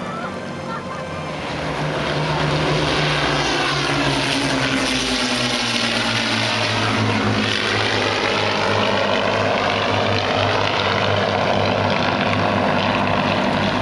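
Avro Lancaster bomber's four Merlin V12 piston engines in a low flypast, a heavy propeller drone. It swells over the first couple of seconds, drops in pitch as the bomber passes, then holds steady.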